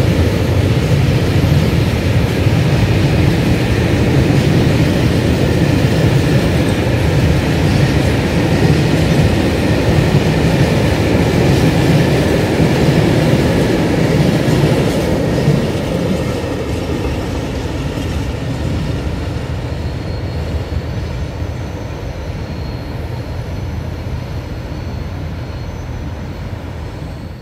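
Train of empty freight wagons rolling past with a dense rumble and the clatter of wheels over the rails; the noise drops about halfway through and then slowly fades as the train moves away.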